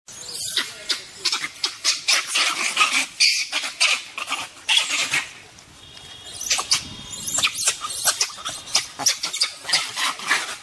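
Monkeys giving a rapid series of short, sharp, high-pitched calls, with a brief lull a little past halfway.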